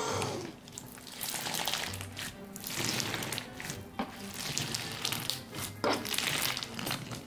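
Putty slime packed with plastic pony beads squished and squeezed by hands, making a wet, crackly crunching of beads clicking against each other in the sticky slime.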